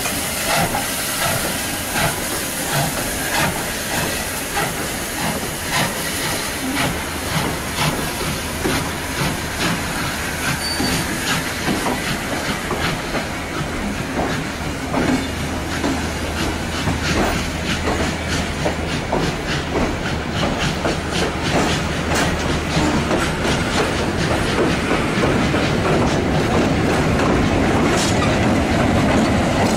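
A steam-hauled passenger train passing close by: steam from locomotive J549 hisses at first and fades, then the carriages roll past with wheels clicking over the rail joints. The train grows a little louder near the end.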